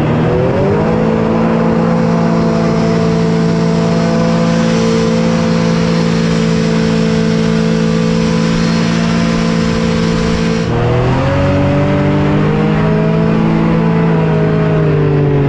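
SCAT hovercraft engine and fan running hard. The pitch climbs to a steady high drone in the first second, drops suddenly about two-thirds of the way through, then climbs and wavers again.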